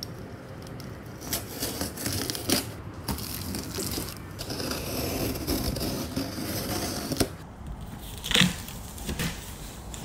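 A utility knife slicing through the tape and cardboard of a large shipping box, with scratchy cutting strokes. The cardboard is then handled, with a couple of sharper knocks near the end as the flaps are opened.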